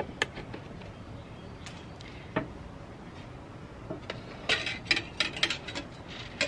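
Hand screwdriver turning a wood screw into a wooden nest box: a few faint clicks, then a quick run of clicks and taps near the end.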